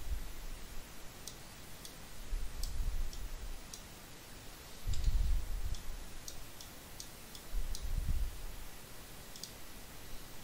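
Computer mouse clicking now and then, about a dozen scattered clicks, with a few soft low bumps in between, the loudest about halfway through.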